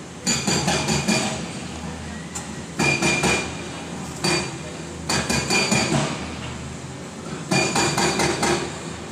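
Hammering on metal: rapid knocks with a ringing tone, in five bursts of several strikes each.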